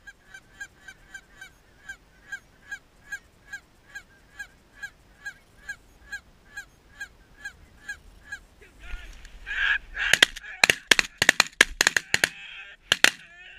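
Goose honks repeating evenly, about three a second, then, about ten seconds in, a rapid volley of shotgun shots fired at geese passing overhead.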